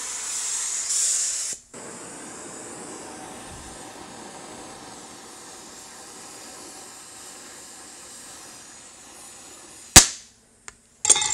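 Oxy-fuel torch flame hissing steadily as it heats a steel rivet red hot for hot-riveting a Browning 1919 side plate, louder for the first second and a half. About ten seconds in comes one sharp loud hammer blow, and near the end a ringing metallic strike of hammer on steel.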